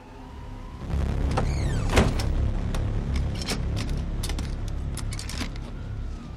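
Wooden shed door being worked open, its metal latch rattling and clicking. There is a sharp knock about two seconds in and a falling creak, over a low rumble.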